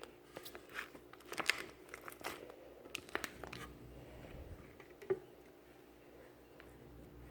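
Slime being squeezed and stretched by hand, making a run of crackles and sharp clicks that thin out after about three and a half seconds, with one last click near five seconds.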